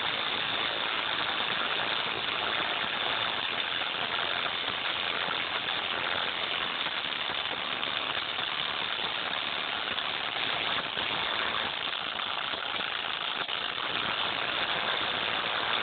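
A bare headphone driver played far past its limit, giving a loud, steady, harshly distorted buzz in which the song is mangled beyond recognition.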